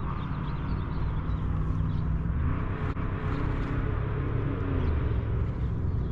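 Steady low rumble with a hiss over it, unbroken and even in level.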